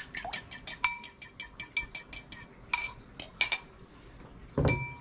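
A fork tapping and scraping rapidly against a small bowl, about five clicks a second, as whisked egg is scraped out into a mixing bowl. Then a few separate ringing clinks of metal on the bowl, and a louder clink with a knock near the end.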